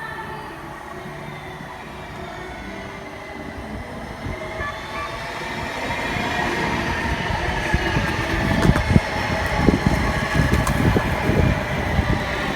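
Lynx Blue Line light rail train approaching and passing. Its running sound grows louder from about halfway through, and a series of heavy thumps comes near the end.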